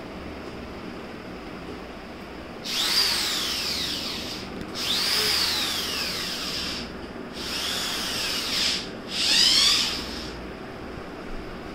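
Corded electric drill run in four short bursts, its motor whine rising and then falling in pitch each time.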